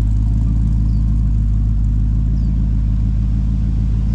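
Small-block V8 of a custom 1948 Chevrolet Fleetline idling steadily through Cherry Bomb mufflers, a deep even exhaust rumble.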